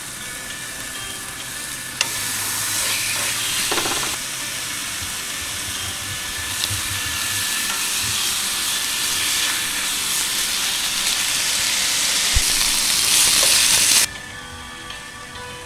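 Food sizzling on a hot cooking surface: a steady loud hiss that cuts off suddenly near the end.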